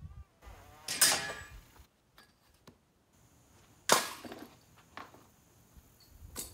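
Several sharp clacks and knocks, the loudest about a second in and another about four seconds in, with smaller taps after: a long metal straightedge being handled and set down on a thin wall panel lying on sawhorses.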